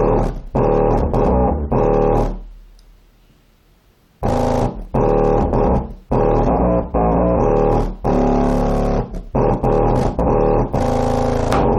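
A rebuilt JL Audio W7 subwoofer playing bass-heavy music loud, its cone making long, hard strokes. About two seconds in, the music fades out for nearly two seconds, then the bass comes back and keeps stopping and starting in short phrases.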